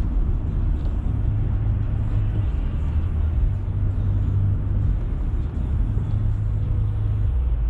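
Car driving on a highway, heard from inside the cabin: a steady low rumble of engine and tyre noise.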